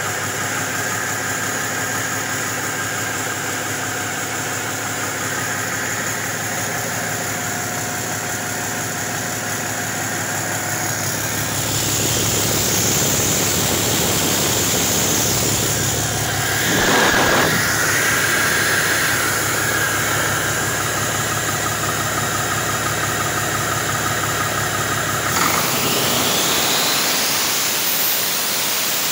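A 2011 Cummins ISX12 inline-six diesel engine running steadily on a test run. About twelve seconds in it grows louder and hissier, and near the end a high whine sweeps up in pitch.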